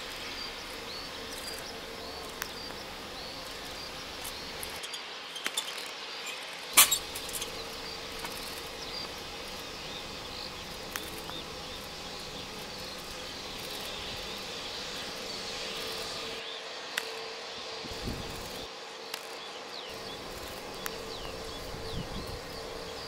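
Insects chirping and buzzing in the grass over a faint steady hum, with a sharp click about seven seconds in.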